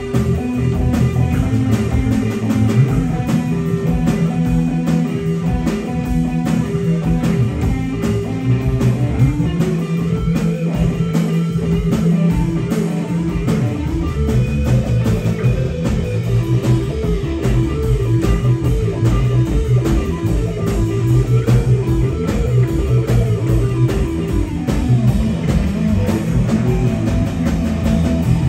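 Live rock band playing an instrumental passage: electric guitar, bass guitar and drum kit, with a prominent bass line and a steady beat.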